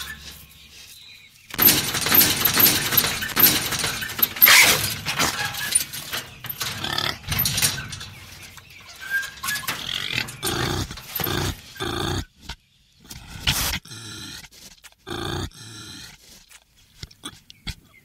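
Farm ambience of animal calls: a dense, loud stretch of animal noise starting about a second and a half in, then a string of short, separate calls.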